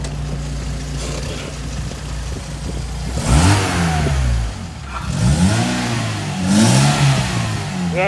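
Volkswagen car engine idling steadily, then revved three times in quick succession, the pitch rising and falling each time, heard from beneath the car.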